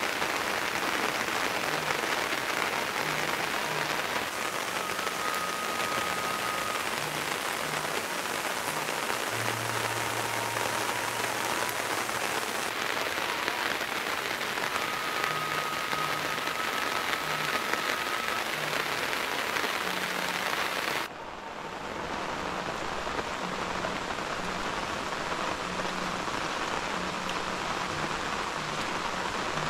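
Steady rain falling in a village. About two-thirds of the way through, the hiss suddenly turns duller.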